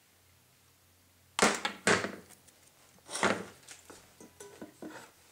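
A spoon knocking and clinking against a bowl in a series of sharp strikes, the loudest about a second and a half, two and three seconds in, followed by lighter taps.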